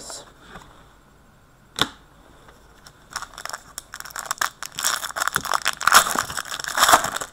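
A hockey card pack's wrapper being torn open and crinkled in the hands: a dense, crackly tearing and rustling through the second half, after a single sharp tap a little under two seconds in.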